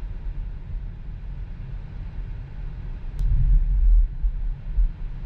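Low road rumble of a Tesla electric car driving, with no engine note, swelling for about a second midway. A single sharp click comes just before the swell.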